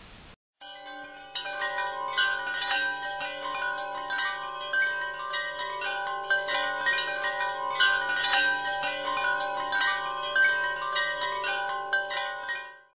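Wind chimes ringing, many overlapping struck tones over a low steady drone, starting about half a second in and fading out near the end.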